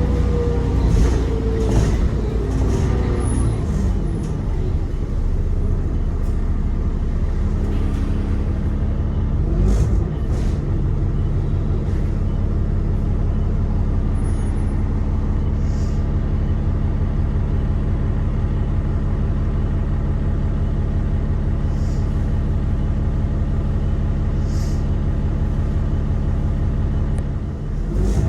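Alexander Dennis Enviro 400 double-decker bus engine: a falling whine in the first few seconds as it winds down, then a steady idle. Short hisses of compressed air from the air brakes come several times.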